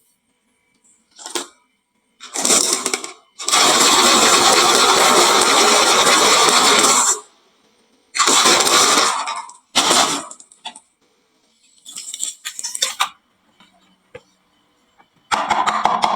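Marbles rolling and clattering down a HABA wooden slope marble run and dropping into toy trucks, in several bursts of rattling. The longest, steady clatter lasts about three and a half seconds, from roughly a third of the way in.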